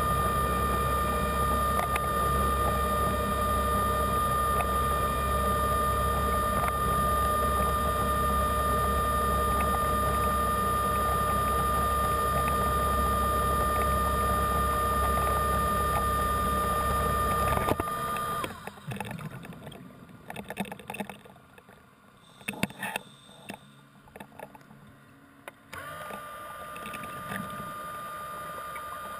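Underwater scooter (diver propulsion vehicle) motor running, heard underwater as a steady high whine over a low hum. It cuts off abruptly about 18 seconds in, leaving faint clicks and scattered noise, then starts again more quietly near the end.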